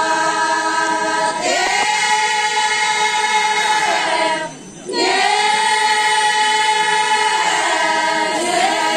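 A group of Changsa women singing a traditional cultural song together in long held notes. Each phrase slides up into its first note, with a short break for breath about four and a half seconds in.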